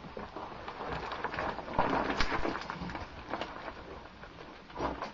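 Caving gear and clothing scraping, rustling and knocking against rock as cavers squeeze through a narrow passage, with irregular clicks throughout and a louder stretch about two seconds in and again near the end.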